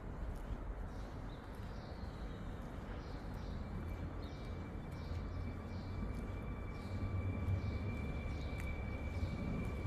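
Low rumble of a railway station with a small bird chirping about every three-quarters of a second; a steady high whine sets in about four seconds in and the rumble swells as a train draws near.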